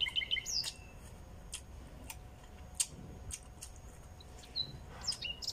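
Small songbirds chirping, a quick run of chirps at the start and a few short whistled notes near the end, with scattered sharp clicks in between from chewing and lip smacks as ribs are eaten by hand.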